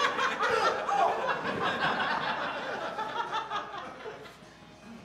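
Audience laughing together in a theater. The laughter swells at the start and dies away about four seconds in.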